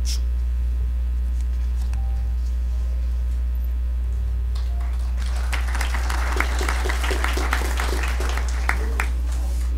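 Audience applauding, starting about five seconds in and lasting about four seconds, over a steady low hum.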